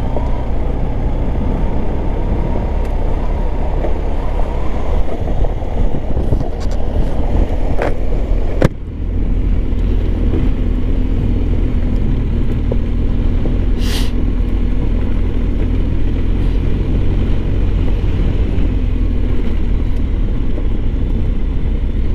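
BMW R1250GS Adventure motorcycle riding along a gravel road: a steady engine and road rumble with tyre noise from the loose stones and wind on the microphone. A sharp click comes about nine seconds in, and a brief high ping about fourteen seconds in.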